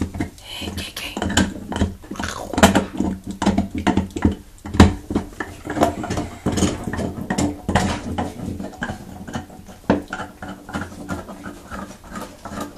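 A dog gnawing and chomping on a bone, teeth cracking and clicking against it irregularly.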